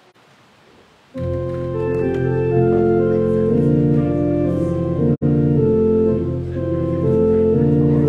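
Organ starting a postlude about a second in, playing sustained, slowly changing chords, with a split-second dropout in the sound a little past the middle.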